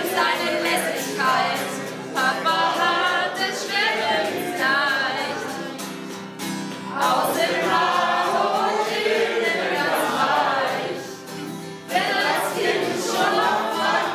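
A group of people singing a song together to an acoustic guitar, with a brief lull about eleven seconds in.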